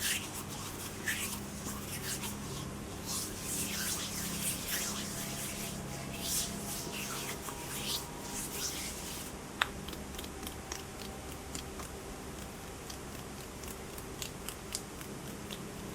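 Hands rubbing and swishing together close to the microphone. About nine seconds in the rubbing gives way to a quieter stretch of scattered small clicks.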